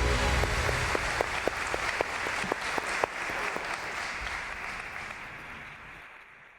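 Audience applause that fades away gradually, a few single claps standing out loud in the middle; a held musical chord dies out in the first second.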